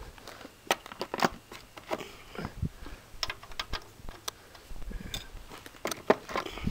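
Steel sockets clicking and clinking as a hand picks through a socket set for a larger socket. Scattered sharp, irregular metallic clicks, crowding together near the end.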